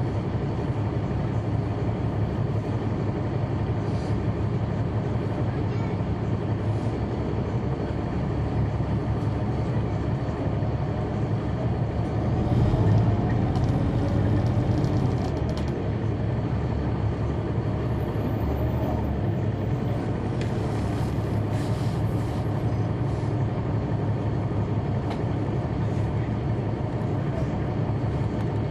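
Caterpillar C9 ACERT diesel engine and drivetrain of a 2004 Neoplan AN459 articulated bus running, heard from inside the rear of the cabin as a steady low rumble. It grows louder with a rising pitch about twelve seconds in.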